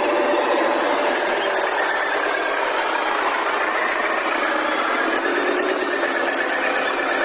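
Radio-controlled model truck's electric motor and gears whirring steadily, with a faint wavering whine and a light rattle.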